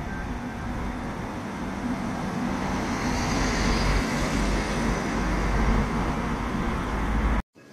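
Steady outdoor noise: a fluctuating low rumble with a hiss that swells around the middle, cutting off abruptly near the end.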